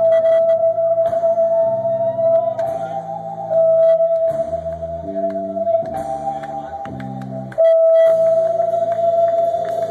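Live band music: a bass guitar plays a line of low notes beneath one long held high note that bends briefly upward about two seconds in.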